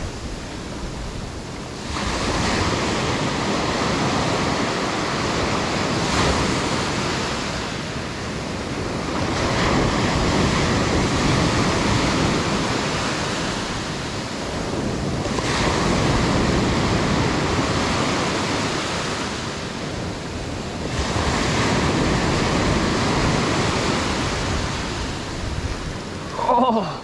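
Surf breaking on the shore: about five waves, each rising quickly into a rush of noise and fading away over several seconds before the next.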